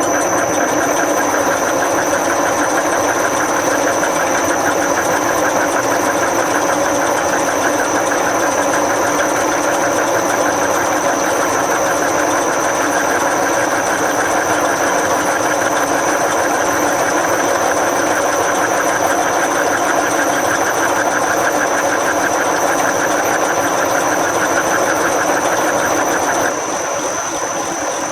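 A workshop machine tool running steadily under power, with a constant high whine over a fast mechanical buzz; it drops a little in level near the end.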